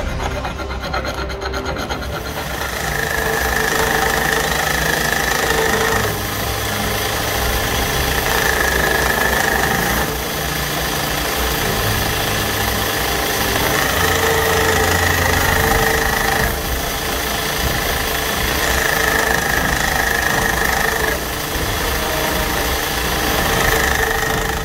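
A hand file rasps across spring steel for the first couple of seconds, then a belt grinder runs steadily as a steel axe blade cut from a truck leaf spring is ground on the belt. A higher grinding tone comes and goes every few seconds, one pass after another.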